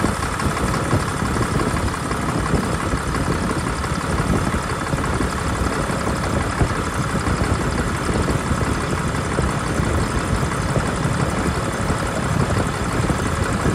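2022 Ram 3500's 6.7 L Cummins inline-six turbo-diesel idling steadily on a cold start, with a light knock that the owner takes for compression escaping back through the intake, not lifters: a sign of internal engine failure.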